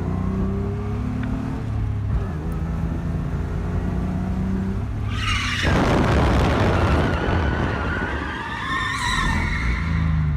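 Drift car's engine running, then about five seconds in a sudden loud burst of tyre skidding, with a wavering high tyre squeal that carries on until near the end as the car slides.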